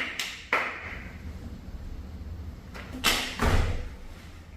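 Taekwondo uniform (dobok) snapping sharply with fast poomsae strikes: two crisp cracks near the start and two more about three seconds in, the last with a low thud.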